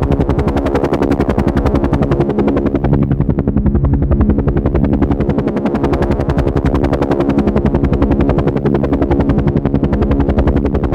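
Helicopter running, its rotor blades chopping in a fast, even beat over a steady hum.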